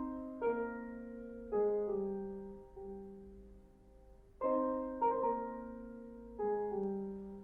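Slow solo piano: single notes and chords struck and left to ring, with the same short phrase played twice.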